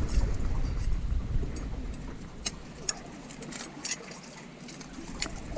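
A few sharp clicks and scrapes of a steel knife blade working gooseneck barnacles loose from a rough concrete block. Under them is a low rumble that fades about halfway through.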